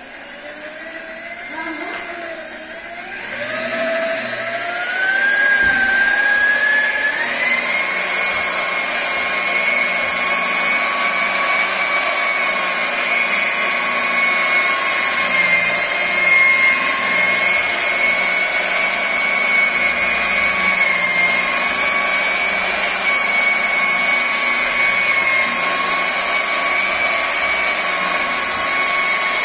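Electric rotary car polisher spinning a polishing pad against car paint. Its motor whine climbs in pitch and loudness over the first several seconds as it speeds up, then holds a steady high whine.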